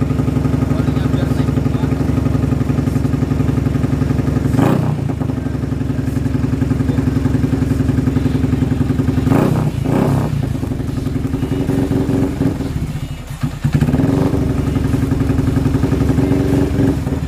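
Yamaha Vixion's single-cylinder four-stroke engine, fitted with an aftermarket racing exhaust, running at idle with short throttle blips about five and ten seconds in. Around thirteen seconds in it sags as if about to stall, then picks up again. The owner suspects the fuel is nearly empty.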